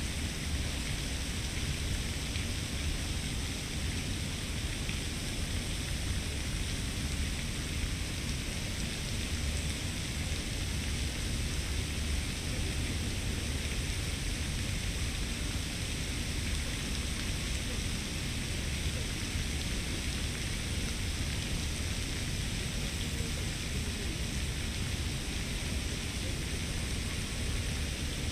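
Steady outdoor ambience: an even hiss with a low rumble underneath and two faint, steady high tones, with no distinct events.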